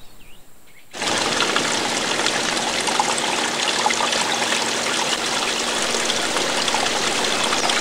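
Water running and splashing steadily from a garden fountain, starting abruptly about a second in.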